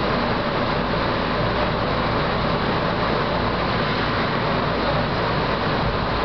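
Steady hum and whir of a standing electric train's on-board equipment, such as fans and auxiliary machinery, heard from inside the driver's cab, with a few faint steady tones in it.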